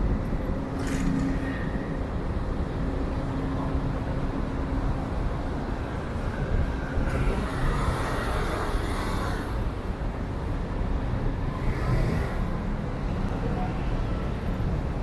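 Steady city road traffic, a low rumble, with one vehicle passing closer about seven to nine seconds in and a smaller pass near twelve seconds.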